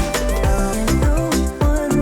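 Background music with a steady beat: deep bass-drum hits that drop in pitch about twice a second under held synth notes.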